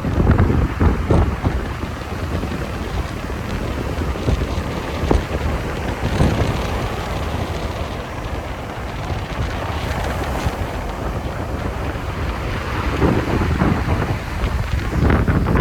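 Sea waves washing on the shore under strong wind buffeting the microphone, with a louder wash of surf near the end.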